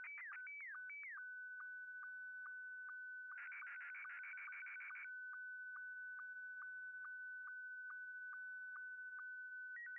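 Slow-scan television (SSTV) image transmission audio from MMSSTV: a steady high whistle broken by short downward blips a little over twice a second, the line sync pulses. It warbles in quick sliding tones during the first second, and turns into a rapid buzzy jumble of changing tones from about three to five seconds in. The signal is faint.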